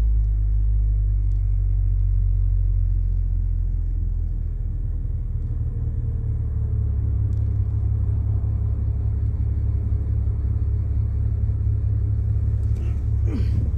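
BMW 135i's N54 twin-turbo straight-six idling steadily with a low rumble, running on a newly replaced fuel pump.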